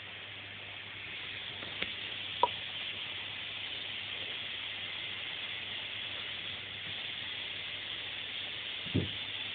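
Vacuum cleaner running in the background: a steady hiss with a low hum that grows a little louder about a second in. A couple of short clicks come about two seconds in, and a soft thump near the end.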